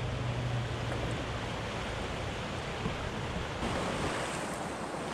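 River water rushing and splashing around a kayak as it pushes off into the current, with wind buffeting the microphone. A low hum fades out about a second in.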